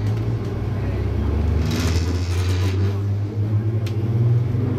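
MTR East Rail MLR electric train pulling away from a station, heard from inside the car: a steady low drone of the traction motors and running gear. About two seconds in, a brief hiss rises over it, and a single sharp click comes near the end.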